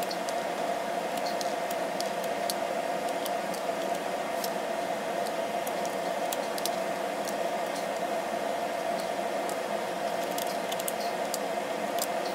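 Faint, scattered small clicks of plastic knobs being pulled off the pots of a Denon MC 6000 DJ controller, one after another, over a steady hum and hiss that is the loudest thing throughout.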